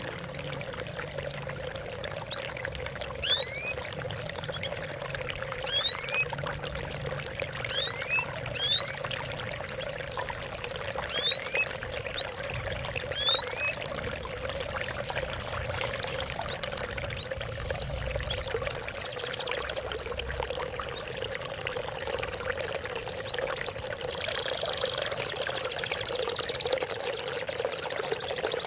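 Water trickling and pouring steadily, with a bird's short rising chirps repeating about once a second through the first half and a fast, high trill near the end.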